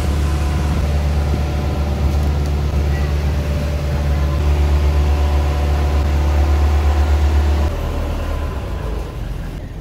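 Outrigger boat's engine running steadily at cruising speed, a deep drone with a hum above it. About three-quarters of the way through it is throttled back and the drone drops sharply.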